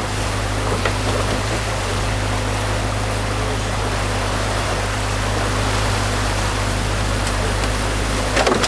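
Compact excavator's diesel engine running steadily as a low, even hum while the machine works. Over it, the steady rush of stream water pouring through the broken beaver dam.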